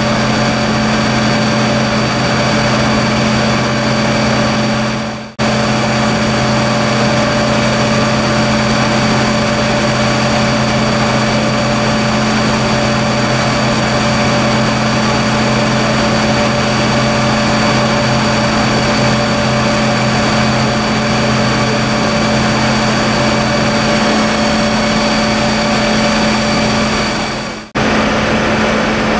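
Fire engine diesel engines running steadily to drive their water pumps, a constant hum with a faint high whine on top. The sound drops out briefly about five seconds in and again near the end.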